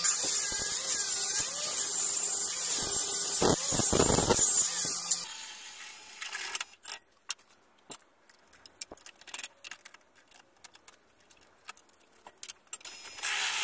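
Hand-held angle grinder grinding the edge of a steel bar: a loud, high-pitched grinding whine with a wavering tone, cut off abruptly about five seconds in. After that come much quieter scattered clicks and ticks as a drill press bores through the steel bar.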